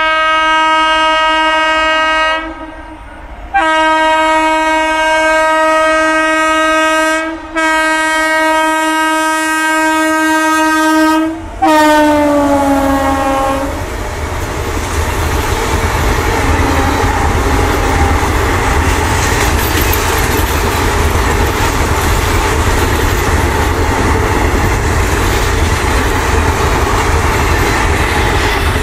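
WAP-7 electric locomotive's horn sounding in four long blasts, the last one dropping in pitch as the locomotive passes. Then the passenger coaches rush by, their wheels clattering over the rail joints.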